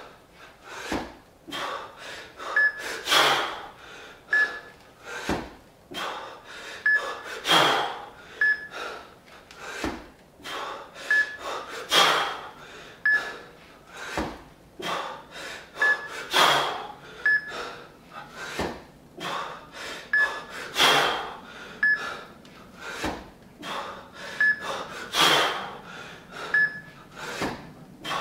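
Heavy, forceful breathing of a man doing two-arm kettlebell jerks with a pair of 20 kg kettlebells. A loud breath comes about every four and a half seconds, one per rep, with quicker, lighter breaths between.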